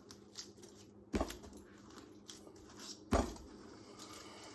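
A whole pineapple pounded down onto a kitchen counter twice, about two seconds apart: two heavy thuds, the way the fruit is beaten to loosen it before pulling it apart.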